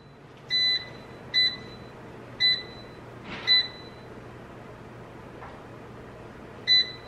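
Microwave oven keypad beeping as buttons are pressed to set more cooking time: five short electronic beeps spread over several seconds, the first slightly longer, over a low steady hum.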